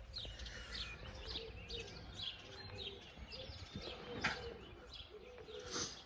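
Wild birds chirping: many short, high calls repeating one after another over a low, steady background rumble.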